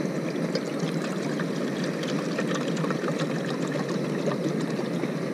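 Water pouring steadily from a plastic water bottle into the cooking pot of a Firemaple Polaris stove system, filling it with half a litre of water.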